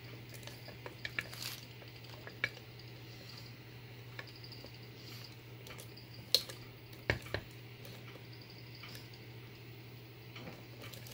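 Scattered small clicks and knocks of a brass euro-profile lock cylinder being handled and clamped into a metal bench vise, a few sharper knocks about six and seven seconds in, over a faint steady hum.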